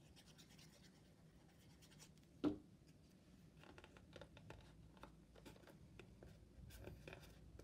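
Faint rustles and light ticks of hands pressing paper hearts onto a printed card box, with one short sharp tap about two and a half seconds in.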